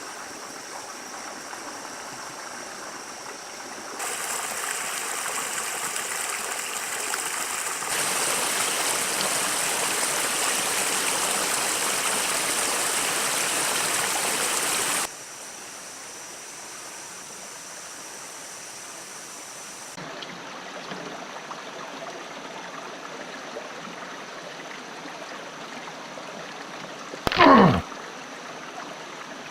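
Creek water flowing, a steady rushing whose level shifts at several cuts and is loudest through the middle. Near the end, a brief loud sound sweeps sharply down in pitch.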